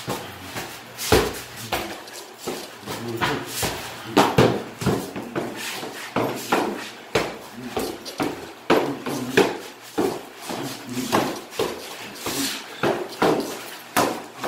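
Punches landing on a hanging heavy bag and a freestanding punching bag: irregular thuds and slaps, about one to two a second.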